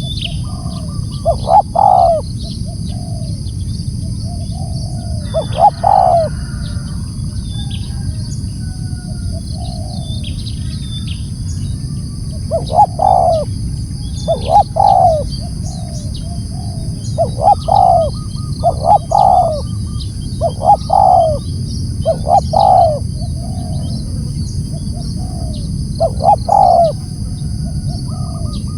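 Spotted dove (tekukur) cooing: about ten short low cooing phrases, irregularly spaced, in two clusters with a long gap in the middle. A steady high-pitched drone runs underneath.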